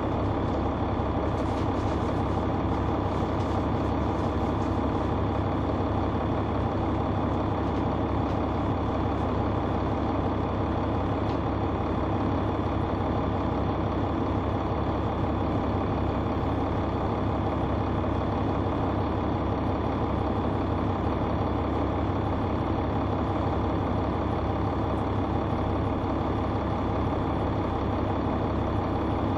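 Caterpillar C9 ACERT straight-six diesel engine of a 2004 Neoplan AN459 articulated bus running steadily, heard from inside the bus, with a few faint ticks and rattles in the first few seconds.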